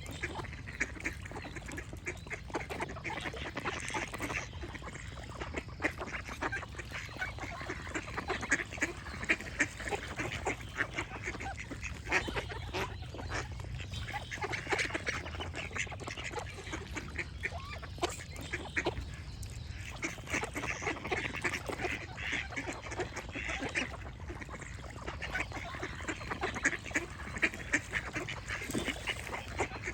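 Ducks quacking, many short calls overlapping in a constant stream.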